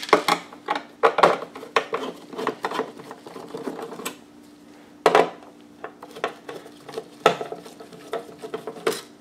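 Phillips screwdriver turning in the screws of a George Foreman grill's metal plate assembly: irregular clicks, scrapes and light metallic clinks of the tool and parts being handled.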